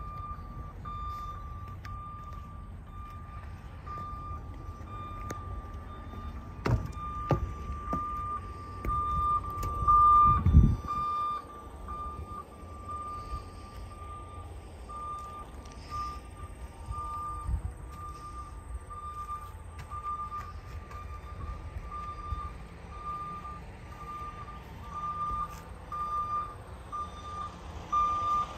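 A vehicle's reversing alarm beeping steadily, a single-pitched beep repeating at an even pace. Under it runs a low rumble with a few knocks, the heaviest a thump about ten seconds in.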